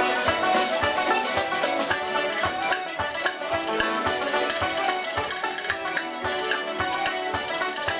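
Live Irish traditional music: a tune played on melody instruments over a steady beat of about three low thumps a second.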